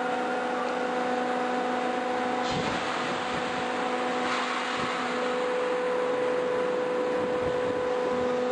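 Hydraulic drive of a cutter suction dredger's spud carriage running under test: a steady machine hum with a whining tone that weakens around the middle and then comes back. There are short rushing surges about two and a half and four seconds in.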